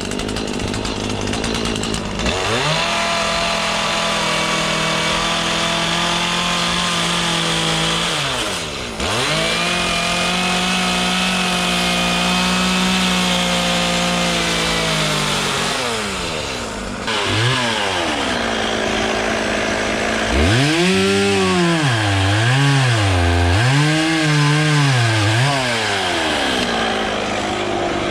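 Two-stroke chainsaw cutting wood. The engine is held at high revs for several seconds at a time, drops off briefly three times, then is revved up and down in quick succession near the end.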